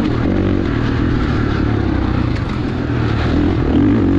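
2019 Husqvarna FC450's single-cylinder four-stroke engine running hard through its FMF titanium silencer, its pitch rising and falling with the throttle as the bike is ridden along a motocross track.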